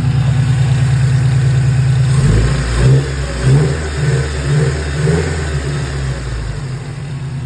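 Freshly installed Toyota 3RZ-FE 2.7-litre four-cylinder engine idling steadily, then running unevenly with a few pulsing surges for several seconds from about two seconds in.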